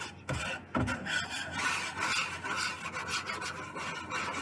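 Whisk scraping around a metal mixing bowl in quick repeated strokes, beating egg, milk and seasoned flour into a wet batter for dredging, with a couple of low knocks against the bowl about half a second in.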